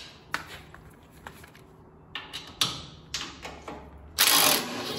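Cordless impact driver with an 18 mm socket loosening a mower shield bolt. A few scattered clicks and clanks come first as the socket is set on the bolt, then about four seconds in the driver starts suddenly, loudest at first, and keeps running.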